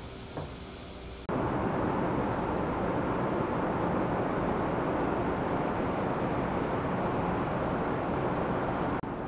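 A loud, steady rush of moving air with no distinct tones, starting abruptly about a second in and cutting off shortly before the end.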